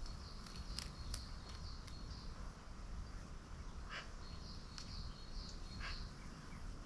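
Faint outdoor ambience: birds giving scattered short high chirps and a thin, high-pitched trill, over a steady low rumble.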